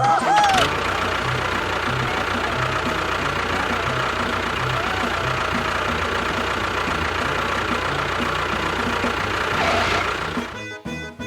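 Small engine or motor running steadily with a constant whine, starting abruptly and cutting off about ten and a half seconds in.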